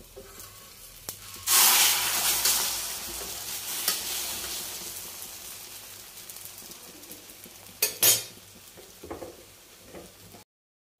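An egg-coated paratha is flipped onto a hot iron tawa. The egg sizzles loudly all at once about a second and a half in and the sizzle fades slowly over several seconds. Near the end a metal spatula gives a couple of sharp scrapes and clinks on the pan.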